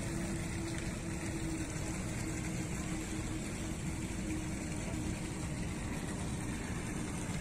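Steady rush of water pouring from a spigot into a pond, with a faint steady hum under it.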